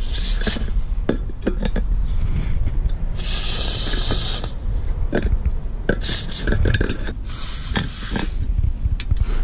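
Aerosol penetrating-oil spray hissing through its straw nozzle onto rusted, seized joints, in three bursts of about a second each, with light knocks of the can and tools between.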